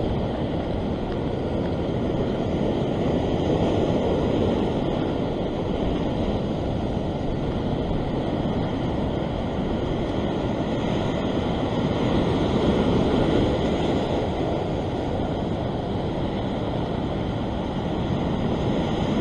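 Sea surf breaking and washing over a rock shelf: a steady rushing wash that swells a little twice, with wind on the microphone.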